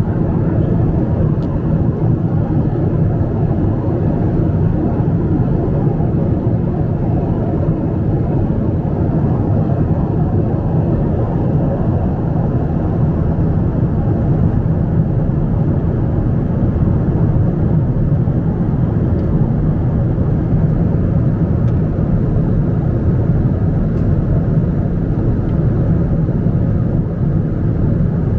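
Steady cabin noise of a Boeing 777-200 airliner at cruise, heard from a window seat inside the cabin: an even, low-pitched rush of engines and airflow.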